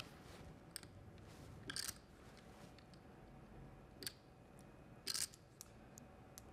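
Faint, scattered clicks of poker chips being handled at a card table, a handful of separate clicks and short clusters a second or more apart.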